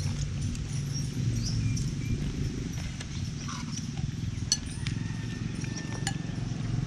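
Outdoor ambience during a meal: a steady low rumble with a few short, high, bird-like chirps. Two sharp clinks, like a spoon on a plate, come about four and a half and six seconds in.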